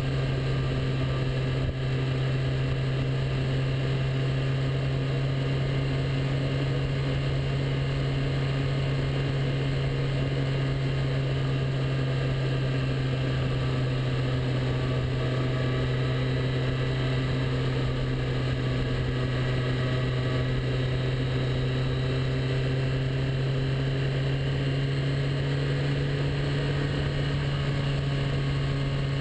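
Motorcycle engine running at a steady cruising speed, heard from on board, with an unchanging low drone over the rush of wind.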